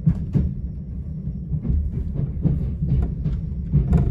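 Southern Class 377 electric multiple unit running, heard from inside the carriage: a steady low rumble with irregular knocks and clatter from the wheels and bogies.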